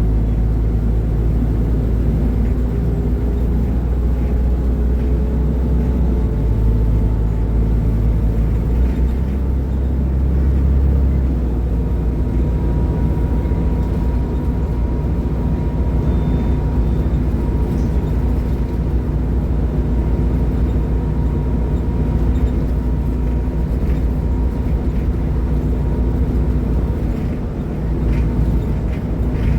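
Diesel engine of a Mercedes-Benz O500UDA super-articulated bus with a ZF automatic transmission, running steadily as a continuous low rumble. The rumble deepens and strengthens for a few seconds about six to eleven seconds in.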